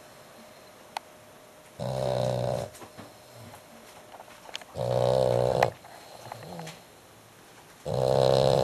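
French bulldog snoring very loudly in its sleep: three long snores about three seconds apart, with quieter gaps between.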